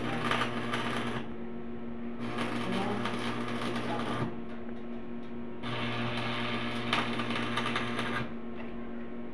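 Electric arc welding on steel roof framing: the arc crackles and sputters in three runs of one to two and a half seconds each, with a low buzz under each run and short pauses between.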